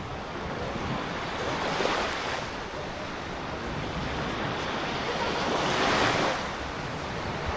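Sea waves washing onto the shore, swelling twice about four seconds apart, with wind buffeting the microphone.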